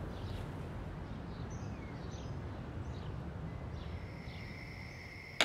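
Low steady background rumble with a few faint bird chirps. About four seconds in, a steady high whistling tone fades in over it.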